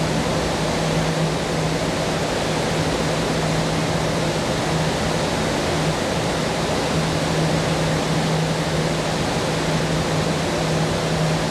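Steady rushing background noise with a constant low hum that drops out for about a second, roughly six seconds in.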